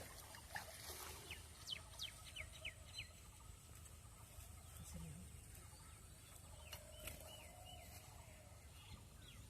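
Faint birds calling over a quiet background: a run of short, quick chirps one to three seconds in, then a few wavering whistles about seven seconds in.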